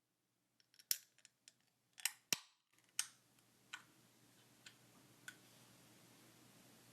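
Irregular sharp clicks and crackles close to the microphone, about ten in all: several quick ones in the first three seconds, then a few spaced ones about a second apart.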